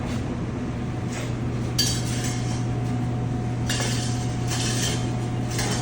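Dishes and utensils clinking in short bursts while a plate is put together, about two seconds in and again several times near the end, over a steady low hum.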